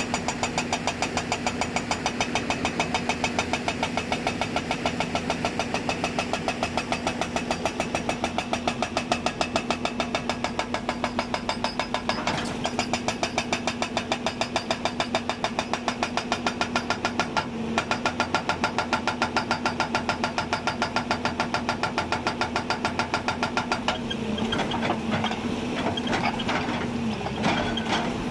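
Hydraulic breaker on a Hyundai 290 excavator hammering in a fast, steady rhythm over the running diesel engine. A few seconds before the end the hammering breaks up and the engine note wavers and dips.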